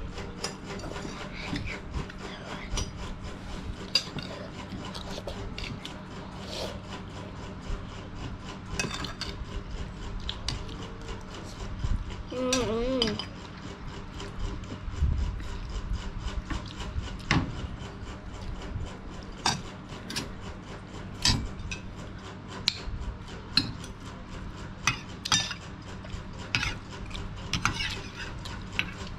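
Metal spoons clinking and scraping against ceramic plates and bowls while eating, scattered sharp clicks over a steady low hum. A brief vocal sound about twelve seconds in.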